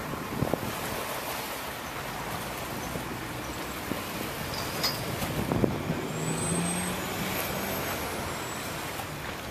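Wind buffeting the microphone over open water, with an engine hum and a thin high whine that rises and falls for a couple of seconds in the middle.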